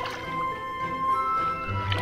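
Background music with steady held notes.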